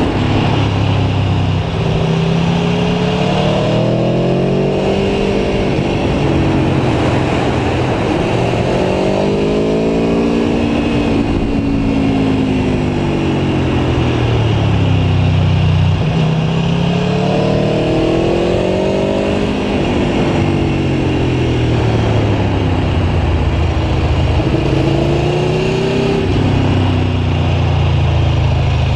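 Aprilia Tuono V4 1100 Factory's V4 engine under way, its pitch climbing and falling again several times as the bike accelerates and eases off, with wind noise underneath.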